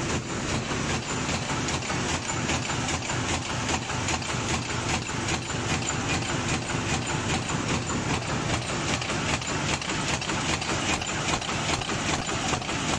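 XZT-150W full-servo paper bowl forming machine running at production speed, about 150 bowls a minute. It makes a steady mechanical clatter with an even rhythm of sharp clacks, about two or three a second, as the turret indexes and the forming stations press each bowl.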